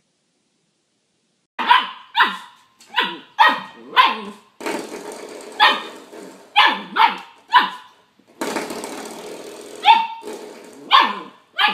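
Small dog barking repeatedly in short, sharp barks, about a dozen of them, after a brief silence. A steady rattling hiss fills the gaps between barks from about halfway through.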